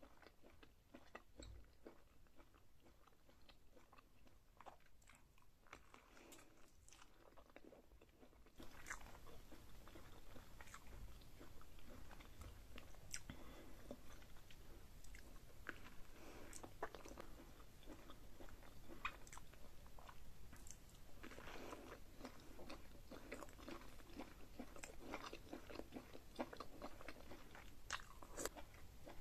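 Faint close-up eating sounds of a seafood boil in chili butter sauce: wet chewing, biting and lip smacks in short, irregular clicks. A steady background hiss steps up about a third of the way in.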